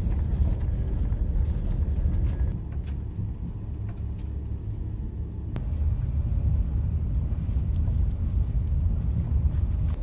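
Passenger train running at speed, heard from inside the carriage: a steady low rumble that eases a little for a few seconds and then builds again, with one sharp click a little past halfway.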